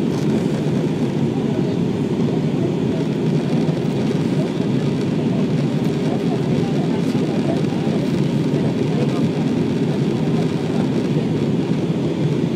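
Steady low rush of an Airbus A320-family jet airliner in flight, its engines and the airflow over the fuselage heard from inside the passenger cabin.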